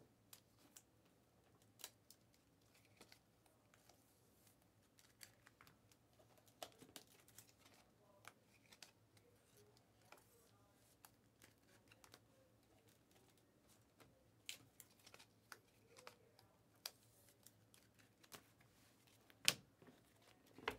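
Basketball trading cards and plastic card sleeves being handled: faint, scattered clicks and rustles, with one sharper click near the end.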